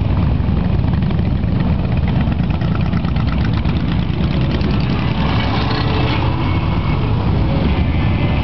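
Motorcycle engines running together in a steady, loud, low rumble.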